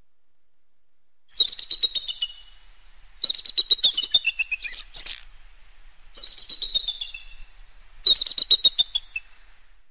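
Bald eagle calling: four bursts of rapid, high-pitched chittering notes, each trailing down in pitch.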